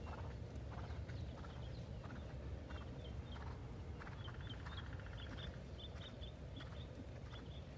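A bird chirping in a quick series of short high notes over a low, steady background rumble.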